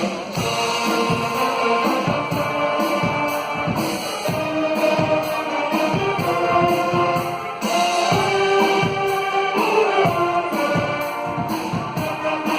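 Music with a steady beat: regular percussion strokes under a sustained melody.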